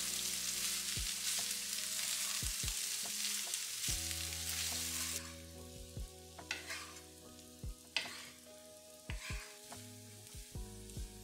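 Rice frying in a nonstick pan, sizzling loudly as it is stirred with a wooden spatula. About halfway through the sizzle drops away suddenly to a quieter hiss, with a few separate scrapes and tosses of the spatula through the rice.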